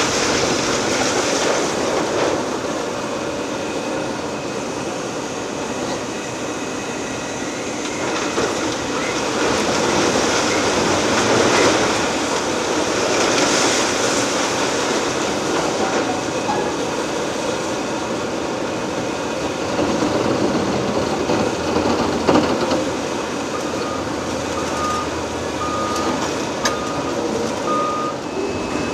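Liebherr R 980 demolition excavator at work: a continuous din of the machine and breaking, falling building material, with a couple of sharp knocks. A reversing beeper sounds about six times near the end.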